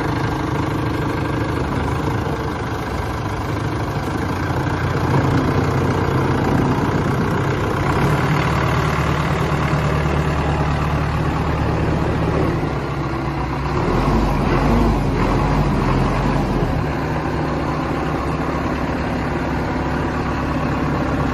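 Massey Ferguson 1204 tractor's diesel engine idling steadily, getting a little louder for a couple of seconds about two thirds of the way through.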